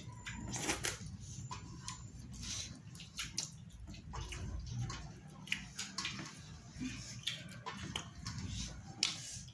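Fingers wiping the last food off a stainless steel plate and being licked clean: an irregular run of short wet clicks and smacks.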